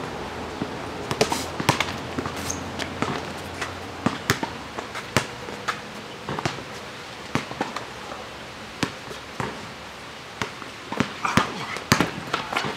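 Basketball dribbled on an asphalt court: a string of sharp, separate bounces, with a quicker cluster of bounces and steps near the end as the ball is driven toward the basket.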